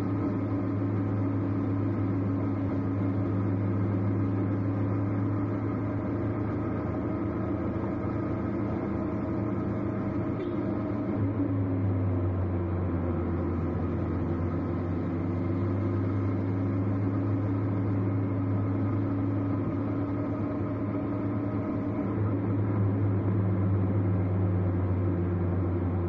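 A road vehicle's engine running steadily while driving. Its note drops slightly about halfway through and rises again near the end.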